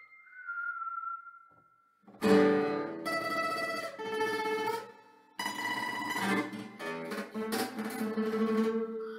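A held high keyboard note fades out. Then, about two seconds in, a nylon-string classical guitar is struck hard and strummed in fast chords. The strumming breaks off briefly around the middle, resumes, and ends on ringing chords.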